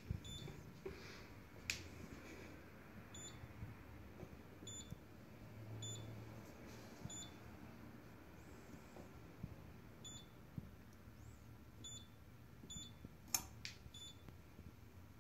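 Computerised key-cutting machine's touchscreen giving short, high electronic beeps as its menu is tapped through, about eight at irregular intervals, faint, over a low hum. Two sharp clicks, one about 2 seconds in and a louder one near the end.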